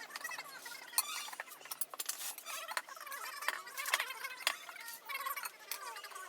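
Irregular sharp metal clicks and clinks from hand tools, mixed with short squeaks of rubber, as a motorcycle tubeless tyre is worked over its rim with screwdrivers used as tyre levers.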